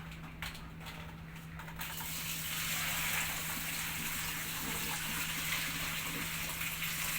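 Water running or gushing steadily, coming in about two seconds in, over a steady low hum.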